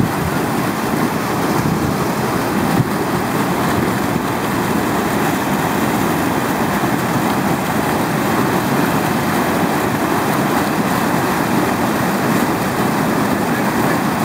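Steady rush of water pouring over a weir and churning into white water below it.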